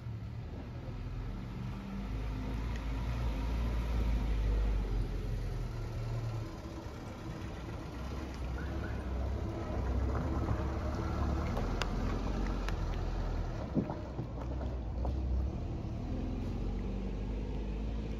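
Low steady rumble of a motor vehicle running nearby, with a few faint crunches as a cat chews dry kibble.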